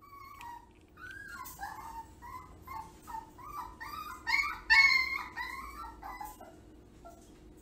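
A puppy whining in a long string of short, high calls that rise and fall in pitch, louder around the middle, as it stands up against the side of a wire exercise pen.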